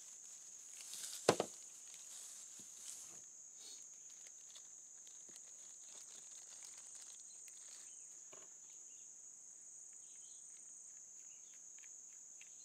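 Steady high-pitched buzz of insects in the grass. Over it, a plastic bag crinkles and a fitting is handled, with one sharp knock just over a second in and small scattered clicks afterwards.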